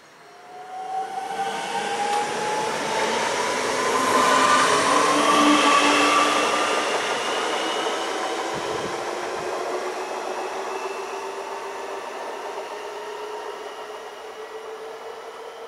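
Red DB Regio electric multiple unit passing along the platform track: rolling noise with an electric motor whine that rises in pitch. It grows loud over the first few seconds, is loudest around the middle, then slowly fades as the train draws away.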